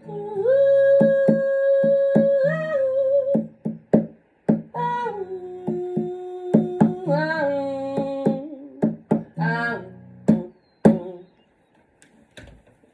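Wordless sung notes, held long and sliding between pitches, over a rhythmically strummed guitar. The music stops about eleven seconds in.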